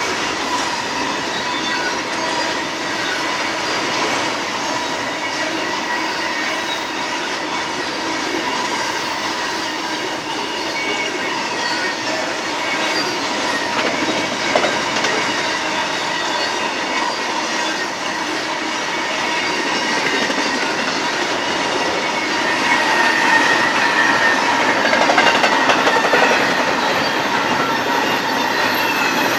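BNSF intermodal freight cars rolling past at steady speed: the continuous rumble and clatter of steel wheels on rail, with a thin, steady high whine from the wheels. It grows louder for a few seconds near the end, and there is one sharp click about halfway through.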